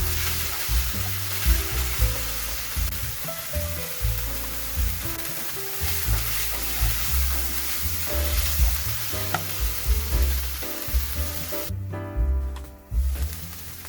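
Kimchi fried rice sizzling in a hot pan as it is stir-fried. The sizzle cuts out briefly near the end.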